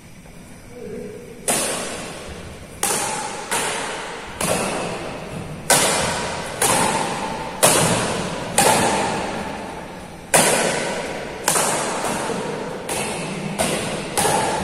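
Badminton rally: racket strings striking a shuttlecock back and forth, about a dozen sharp hits roughly a second apart, the first about a second and a half in. Each hit echoes in a large, bare indoor sports hall.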